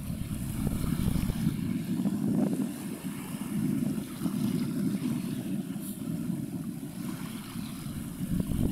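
Wind buffeting the microphone: an uneven, gusty low rumble.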